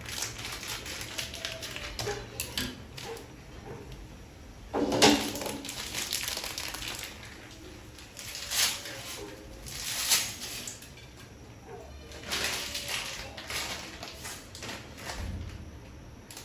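Irregular rustling and knocking of things being handled, in bursts with pauses, the loudest about five seconds in.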